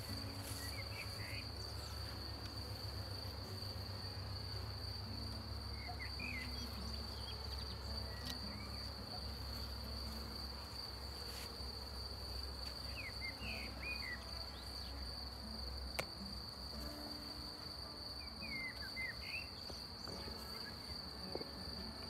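Honeybees buzzing as they fly around an open hive, their hum coming and going, over a cricket's steady high-pitched trill. A few short bird chirps break in now and then.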